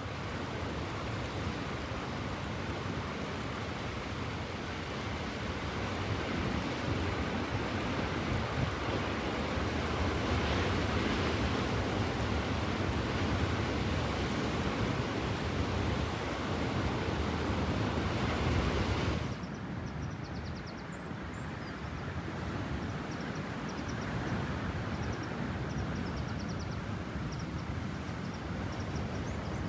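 Sea waves breaking and washing in on the shore, mixed with wind rumble on the phone's microphone. About two-thirds of the way in the sound changes suddenly, and the low wind rumble drops.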